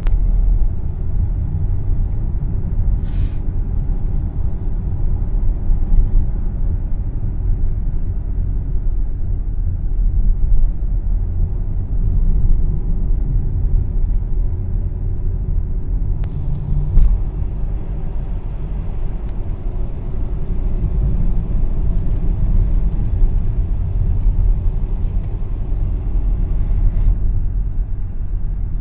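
Steady low rumble of a motor vehicle moving along a road, with a stretch of added hiss in the second half.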